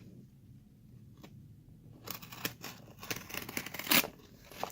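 A package being opened by hand: packaging tearing and crinkling in a busy run of crackly rustles with sharp snaps, starting about halfway in after a quiet spell with a single click.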